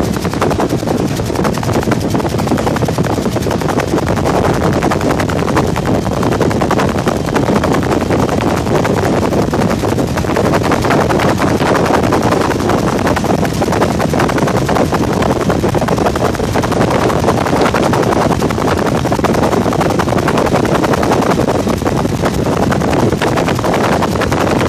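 Helicopter in flight heard from inside the cabin: loud, steady rotor and engine noise with a fast, dense rattling chop.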